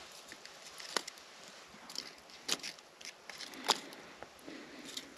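Small campfire embers crackling with scattered sharp snaps and pops, the loudest about a second, two and a half and nearly four seconds in, as twigs are laid and shifted on them. The wood is frozen and iced, and the fire is smouldering without properly catching.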